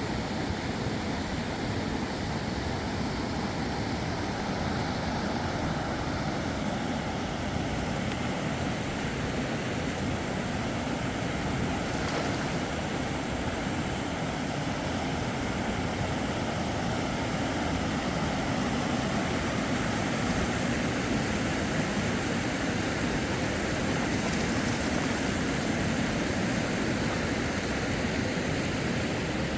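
Fast river water rushing steadily, an even, unbroken roar.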